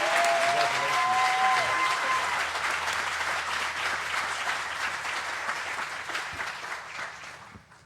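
Congregation applauding, with a few drawn-out cheers over the clapping in the first couple of seconds; the applause dies away near the end.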